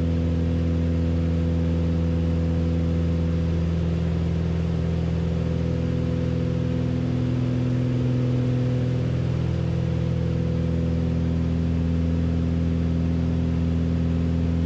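Beechcraft Baron B55's two piston engines and propellers droning steadily in flight, heard inside the cabin, the tone shifting slightly around the middle.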